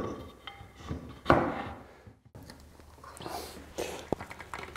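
Glued walnut blocks and metal bar clamps being handled on a workbench during a glue-up: a few sharp knocks of wood and clamp parts, the loudest about a second in, with light rustling and scraping and a thin click near the end.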